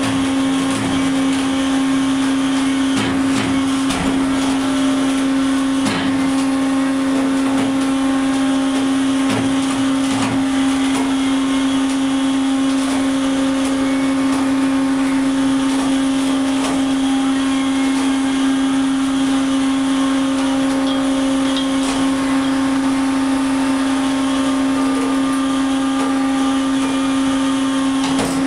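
Steady drone of the vessel's deck machinery with one constant hum as a winch hauls the dredge up onto the deck. A few sharp metal clanks in the first ten seconds or so.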